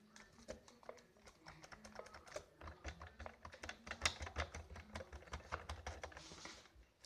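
Keys of a keyboard pressed over and over, a fast, irregular stream of clicks and taps with no notes sounding: the keyboard is not working.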